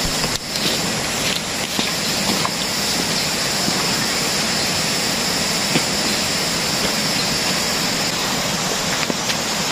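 Steady, even rushing outdoor ambience, with a few faint ticks scattered through it.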